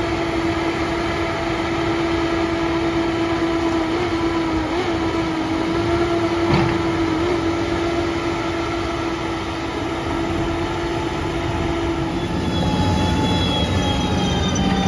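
Barko knuckleboom log loader's diesel engine and hydraulics running under load with a steady whine as it swings a log, with a single knock about six and a half seconds in. About twelve seconds in the sound switches to a Cat grapple skidder's engine running, with a higher whine.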